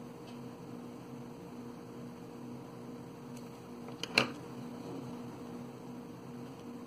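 Steady low electrical hum, with one short sharp tap about four seconds in.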